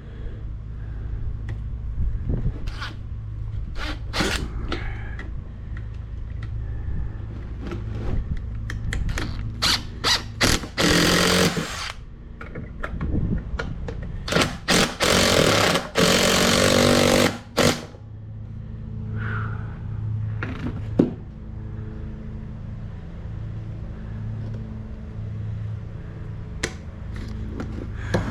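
Power drill driving screws into workbench pieces, running in short bursts with a longer run about halfway through, between knocks and clatter of the parts being handled.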